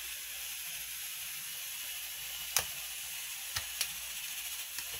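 A few sharp clicks of a knife tip against coconut shell as the white flesh is pried off the wet shell, the loudest about halfway through. A steady hiss runs underneath.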